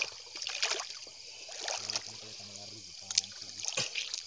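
Shallow, weedy lake water splashing and trickling as a hand rummages through it, with water dripping and running off in irregular bursts.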